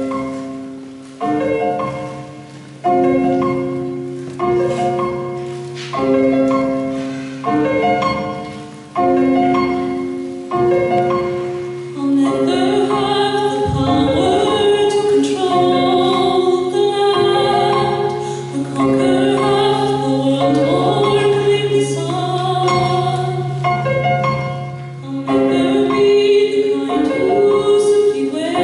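Stage keyboard in piano voice playing a slow introduction, chords struck about every second and a half over a held bass note. About twelve seconds in, singing joins over sustained accompaniment.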